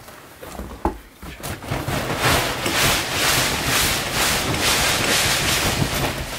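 Snow sliding and scraping off a canvas wall-tent roof in a long rushing, pulsing slide, knocked loose as a metal stovepipe is pushed up through the roof jack and the canvas is slapped from inside. A few sharp knocks come first, about a second in.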